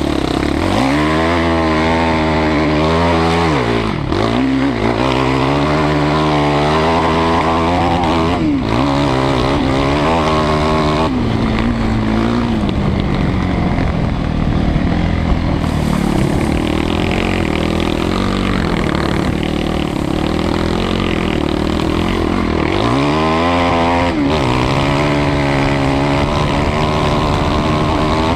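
Quad (ATV) engine heard from on board while riding. The engine note climbs and falls as the throttle is opened and shut, dropping sharply and winding back up several times, with a steadier run in the middle.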